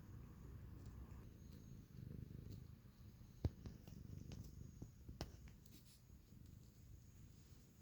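Domestic cat purring quietly, a low steady rumble, with a sharp click about three and a half seconds in and a fainter click a couple of seconds later.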